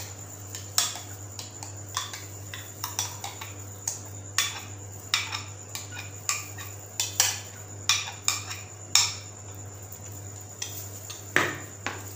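A spoon clinking and scraping against a bowl and cup in irregular taps as thick mango ice-cream mix is spooned into a cup, with a cluster of louder knocks near the end.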